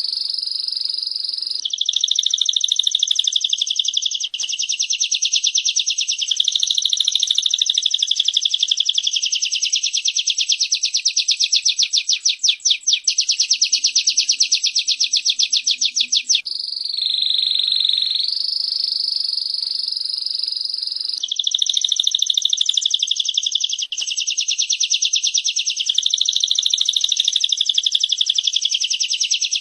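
Female prenjak (prinia) and canary song: long runs of a very rapid, buzzy trill, broken about halfway through by a few seconds of steadier buzzing before the trill resumes.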